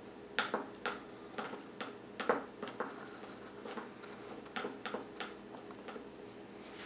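Wooden craft stick clicking and tapping against a plastic cup while it stirs and pushes string down into white paint: about a dozen light, irregular clicks that stop about five seconds in.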